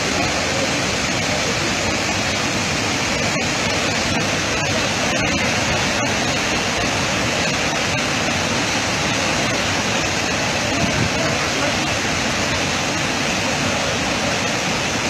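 Muddy floodwater from storm rains pouring over a rocky waterfall, a loud, steady rush of water.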